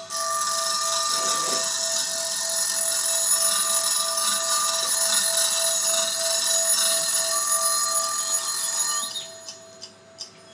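Experimental live electronics: a dense, high hissing and ringing noise wall that starts abruptly, over a steady mid-pitched tone, with a higher tone cutting in and out three times. It drops away about nine seconds in.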